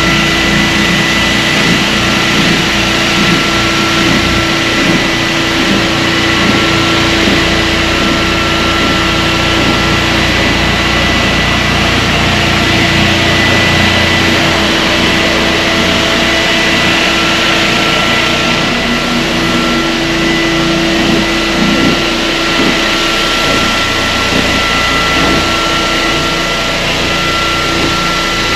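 Hyper Grinders Hyper Orbit orbital floor sander running steadily, sanding an Eastern white pine floor: a loud even machine noise with a steady hum and whine.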